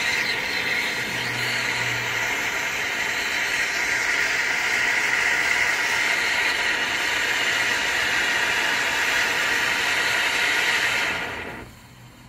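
Monkey Mania 'Bouncy Beans' fountain firework spraying sparks with a steady, loud hiss that cuts off suddenly about eleven and a half seconds in.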